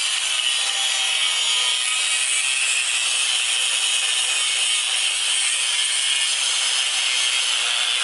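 Angle grinder with a cutting disc cutting through steel on a car's underbody: a steady high-pitched whine of the disc biting into the metal, unbroken throughout.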